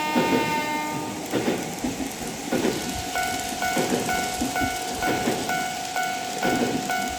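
Kato Soundbox playing back recorded E231 series train sounds. A held tone stops about a second in, over a repeating rail-joint clatter. From about three seconds in, a Japanese level-crossing bell dings steadily, about twice a second.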